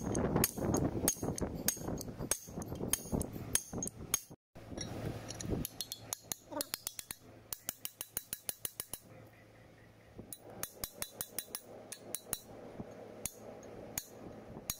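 Hammer blows on steel while fitting a Komatsu GD755 grader's front hub bearings: first heavier strikes on a driver seating a tapered roller bearing, then, after a brief cut-out, runs of quick light taps, several a second, on a drift driving the bearing cup into the hub housing.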